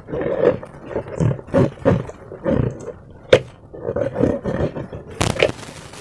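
Slime squished and worked by hand: a run of short, irregular wet squelches, with one sharp snap about halfway through and a louder rasping burst near the end.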